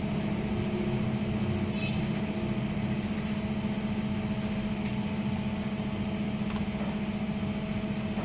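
Steady low hum of background machine noise in a small room, unchanging throughout.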